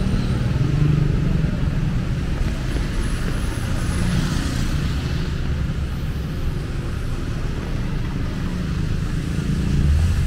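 Road traffic on a wet road: cars and motorcycles running with a steady engine rumble and tyre hiss. A passing vehicle swells the hiss briefly about four seconds in, and the traffic grows louder near the end.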